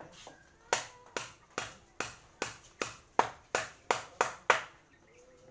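A steady series of about eleven sharp knocks, two to three a second, like something being hammered or struck, stopping about a second before the end.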